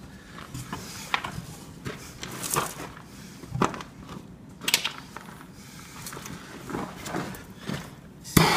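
Scattered light knocks and scrapes of handling, then near the end a handheld gas torch lights with a sharp click and runs with a steady hiss, preheating the aluminum heat exchanger before welding.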